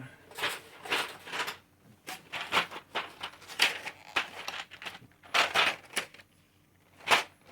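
Plastic keycaps clicking and clattering as they are handled and sorted through, in several irregular bursts.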